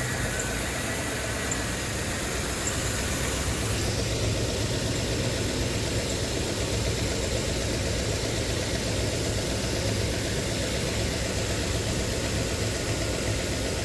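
2005 Land Rover LR3's 4.4-litre V8 running at a raised idle just after starting, with one cylinder's spark plug swapped for an in-cylinder pressure transducer, so that cylinder is not firing. It gets a little louder about four seconds in.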